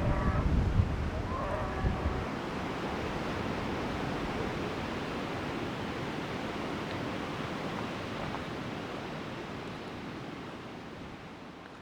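Strong wind blowing steadily, with gusts buffeting the microphone in the first two seconds; the sound fades out near the end.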